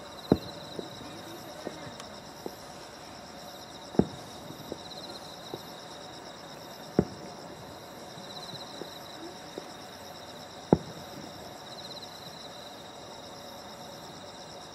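Fireworks shells bursting in the distance: four loud booms about three to four seconds apart, with smaller pops in between, over steady insect trilling.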